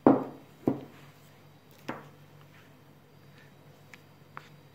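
Sharp knocks and clicks of kitchen utensils handled over a glass baking dish while whipped cream is spread on a cake: three knocks in the first two seconds, the first the loudest, then two small ticks near the end, over a faint steady hum.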